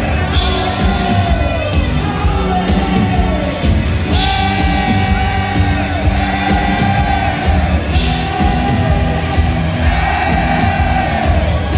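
Rock band playing live and loud, with singing over the full band.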